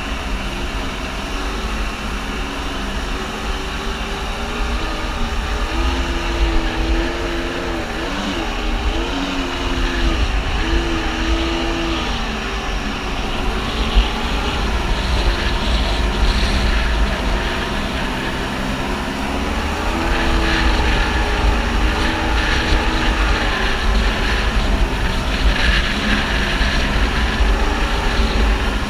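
Kawasaki JS550 stand-up jet ski's two-stroke twin engine running under way, its note dipping and rising several times as the throttle changes, over rushing water spray and wind noise.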